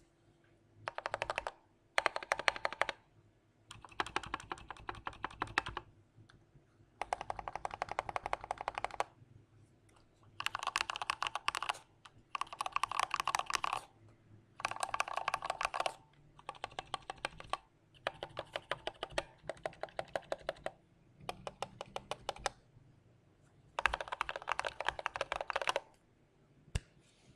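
Mechanical keyboard with Gateron Clear linear switches on heavy 125 g springs being typed on: fast runs of key clacks, about ten bursts of a second or two each, with short pauses between them.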